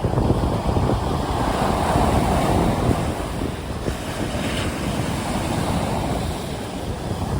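Sea waves washing in as surf, with wind rumbling on the microphone; the wash swells up about a second in and eases off again.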